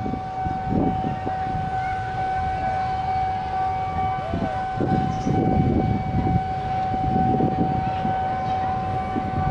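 Railway level-crossing warning alarm holding one steady, unbroken tone, with motor traffic rumbling underneath.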